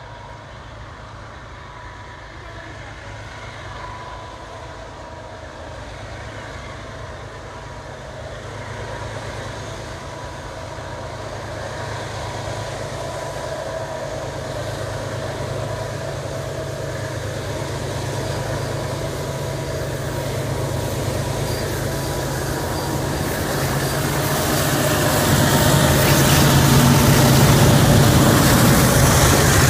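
Kenya Railways diesel locomotive hauling a freight train as it approaches: a low engine drone with a steady whine grows louder. About 25 seconds in the locomotive reaches the camera and the engine and the noise of wheels on rail get much louder.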